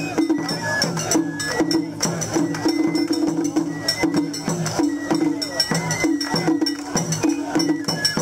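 Japanese shrine-festival sound around a carried mikoshi: repeated held pitched notes of chanting or festival music in a steady rhythm, over frequent clacks and metallic jingling.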